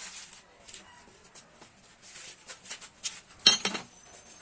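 Hand tools working at the motorcycle's exhaust header bolts, which are stubborn: scattered metal clicks and scrapes, with one louder clatter about three and a half seconds in.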